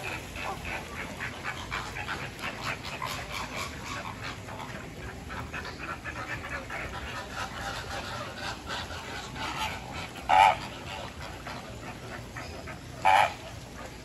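Flock of flamingos calling: a steady chatter of rapid short calls, with a much louder single call about ten seconds in and another near the end.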